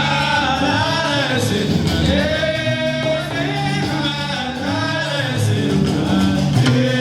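Gnaoua song: a voice singing over a low, stepping bass line of the kind played on the guembri, with sharp percussive clicks.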